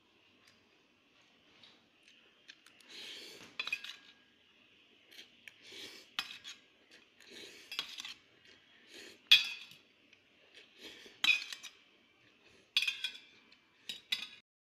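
A metal fork and spoon scraping and clinking against a stainless steel plate while noodles are eaten, in a string of sharp, briefly ringing clinks at uneven intervals, the loudest about nine seconds in.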